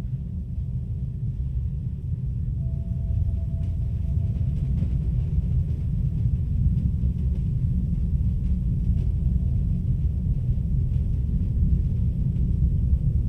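Low, steady rumbling drone with a thin held tone that fades in and out several times over it, and faint scattered ticks.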